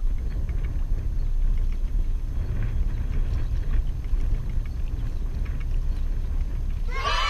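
Strong wind buffeting the microphone, a steady low rumble with a few faint ticks over it. Background music with a melody comes in just before the end.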